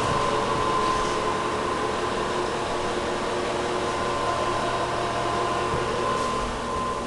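Steady fan-like machine hum with a thin, steady whine running through it.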